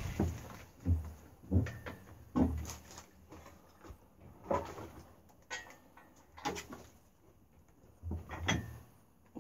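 Separate knocks and clunks, about one a second, from a steel engine stand and its mounting bolts being worked on by hand.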